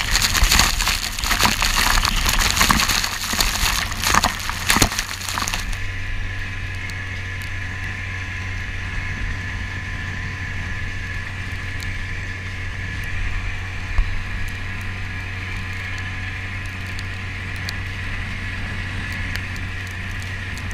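Spray crackles and splashes against the inflatable dinghy's hull and the camera for the first six seconds or so. Then it settles into a steady drone: the Honda BF 9.9 four-stroke outboard running at speed, with water rushing along the hull.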